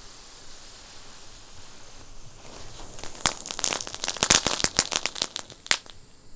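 Brothers Kitty Hawk ground novelty firework hissing as it throws sparks. About three seconds in it breaks into a dense run of sharp crackling pops from its crackling stars, which stop shortly before the end.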